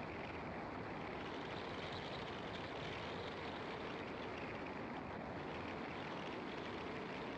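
A car driving at steady speed: a constant hum of tyres and engine on the asphalt, with no changes or sudden sounds.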